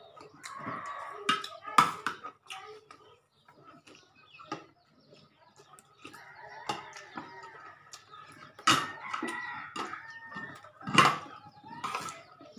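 Domestic chickens clucking and a rooster crowing, in calls that come and go, with a few sharp clicks and knocks between them.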